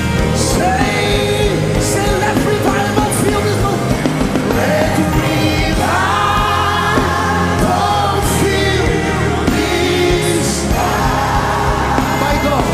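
Live gospel worship music: a band with a steady bass line and cymbals, with sung lines held by several voices.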